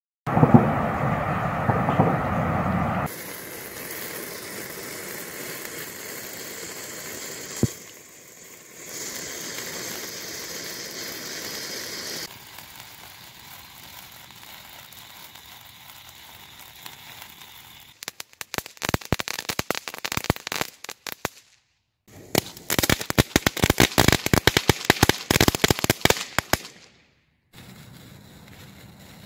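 Small consumer (F1) fireworks going off one after another. A louder rush for about three seconds gives way to a fountain's steady spraying hiss, with one sharp crack partway through. Later come two spells of dense, rapid crackling, then a quieter fizz as a sparkler burns near the end.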